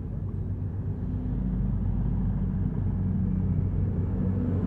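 CrossCountry Voyager diesel multiple unit moving past along the platform, its underfloor diesel engines running with a steady low drone that grows gradually louder.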